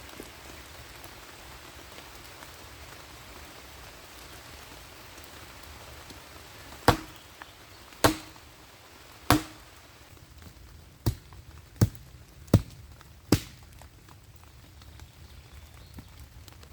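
Axe chopping wood: seven sharp strikes, the first three about a second apart, then four quicker ones.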